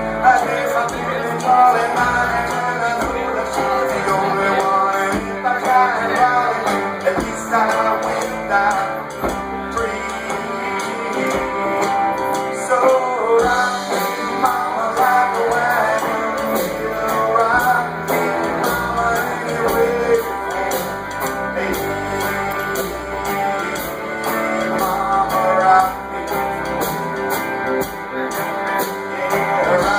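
Live band performing a rock song with guitar, a man singing.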